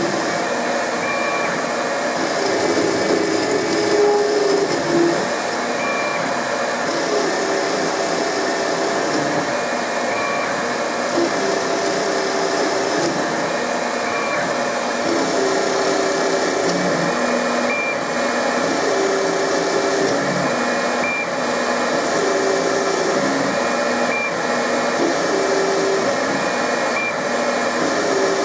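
Denford Orac CNC lathe running a test cut: a steady motor hum with whining axis-drive tones that change pitch every second or so as the tool follows the profile.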